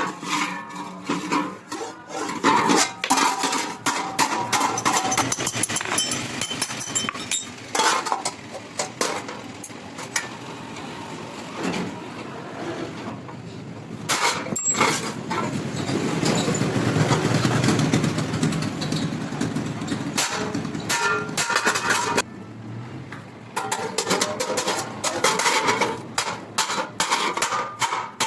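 Hammer blows on metal during blacksmith work on a shovel, in irregular runs of strikes, with a steady machine noise running for several seconds in the middle.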